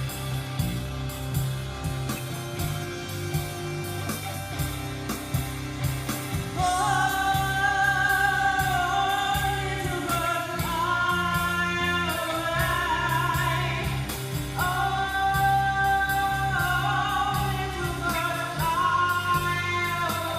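A dark rock band track with a steady bass and drum low end plays throughout. From about six seconds in, a voice sings long, held wordless notes over it, stepping from one pitch to another.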